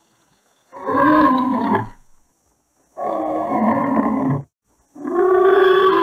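Pegasus creature sound effect: three separate pitched, animal-like calls, each about a second and a half long, with short silent gaps between them.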